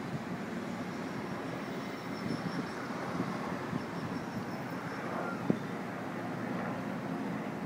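Steady distant city hum from traffic and the harbour, with a single sharp tap about five and a half seconds in.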